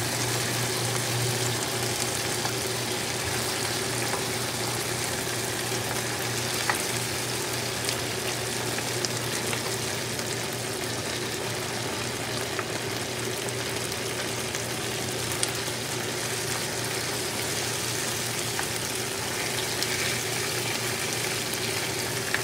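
Pork stir-fry with potatoes and onions sizzling steadily in a frying pan while it is stirred with a wooden spatula, with a few light clicks scattered through.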